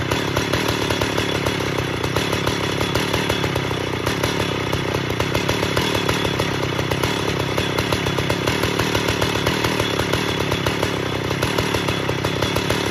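Stihl 051 AV 89cc two-stroke chainsaw engine running steadily without revving, with no bar or chain fitted. The engine was recently rebuilt with a new piston and rings.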